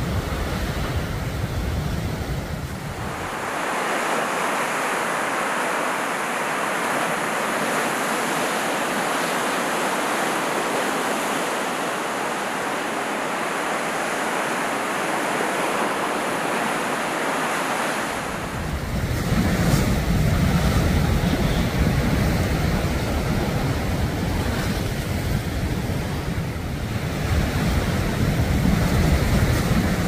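Heavy swell waves breaking and crashing over sea rocks, a continuous wash of surf. Low wind rumble on the microphone is heard for the first few seconds and again from about halfway on.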